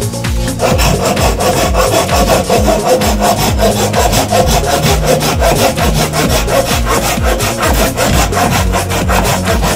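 Hand pruning saw cutting through a branch: steady back-and-forth strokes rasping through the wood.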